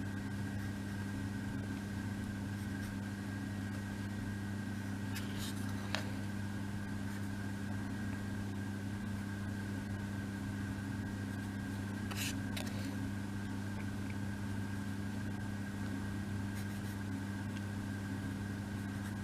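Steady low background hum with a faint high whine above it, and a few soft clicks about six and twelve seconds in.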